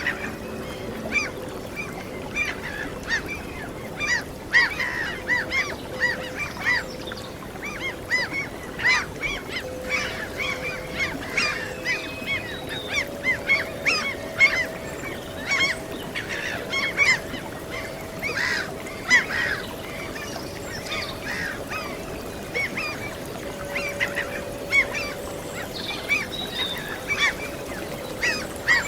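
A flock of gulls calling, many short repeated cries overlapping throughout. Soft held musical notes sound faintly underneath, shifting pitch every few seconds.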